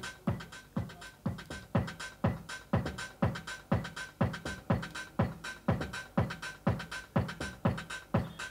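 Music with a steady beat, about two beats a second, played through bare speaker drivers driven by a TDA7388 four-channel amplifier module in a playback test.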